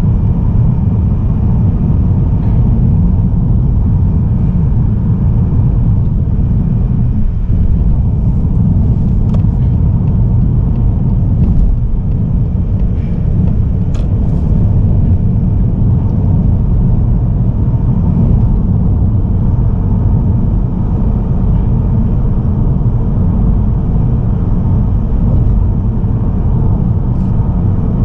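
Steady low road and engine rumble of a car driving, a Mazda3 sedan with the 1.8-litre SKYACTIV-D diesel, with a few faint ticks.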